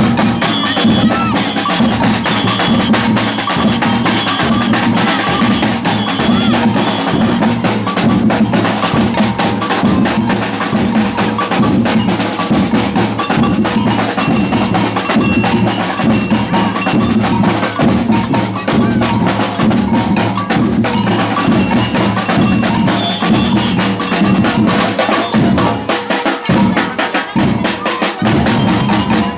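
Batucada samba percussion group playing a steady, driving rhythm on drums and snare drums.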